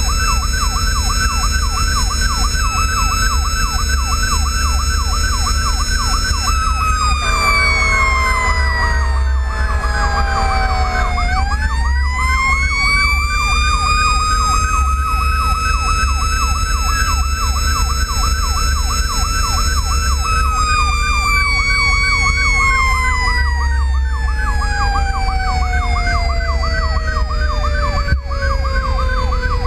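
Fire apparatus sirens on an emergency response: an electronic siren yelps steadily while a mechanical siren slowly winds down, is spun back up about eleven seconds in, holds, then winds down again through the last third. An air horn blasts for about four seconds in the middle, over steady truck engine and road noise.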